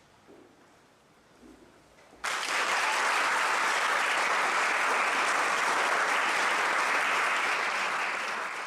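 Quiet for about two seconds, then an audience breaks into applause all at once and keeps clapping steadily.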